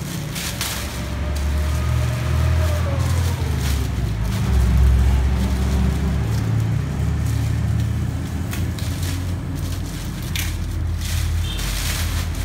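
Plastic carrier bag rustling and crinkling in short bursts as a boxed loudspeaker processor is pulled out of it, over a steady low rumble.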